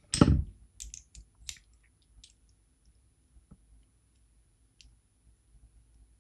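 A loud thump, then scattered light clicks and taps of a disassembled lock's parts and small tools being handled, fading to occasional ticks.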